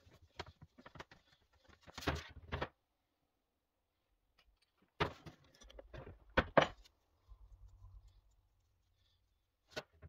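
Small metal carburetor parts and a spanner being handled on a wooden workbench: scattered light clicks and taps, then a few louder sharp knocks about five to six seconds in as parts are set down.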